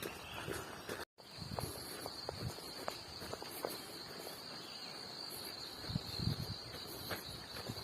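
Insects trilling in one steady, high, unbroken tone, starting about a second in, with a few soft low thumps underneath.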